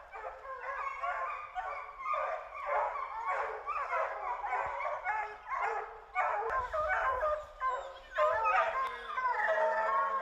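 A pack of bear hounds bawling and barking together in a steady overlapping chorus, baying at a treed black bear.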